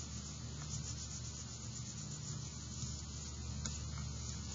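Faint scratching of a dark blue oil pastel being stroked hard across paper, over a steady low hum.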